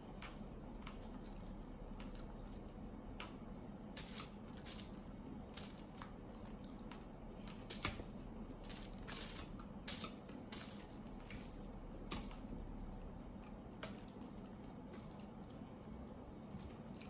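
Eating sounds: a metal fork clicking and scraping in an aluminium foil tray of pasta, with chewing. These come as scattered sharp clicks and rustles, a few a second, over a faint steady hum.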